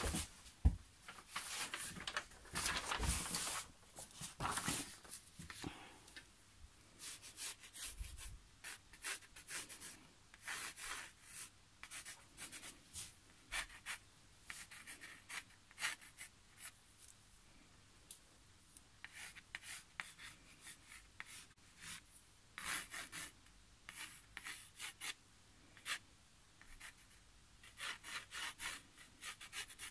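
Derwent watercolour pencil scratching and rubbing across stretched watercolour paper in short, irregular strokes as an outline is sketched, with a single knock about a second in.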